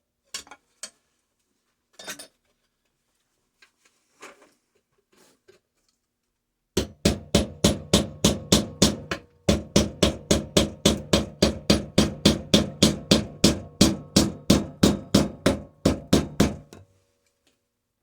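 Hammer blows on the metal shell of a sealed refrigeration compressor. A few scattered knocks come first, then about seven seconds in a fast, even run of strikes, about four a second, with a brief break partway through. It stops a second or so before the end.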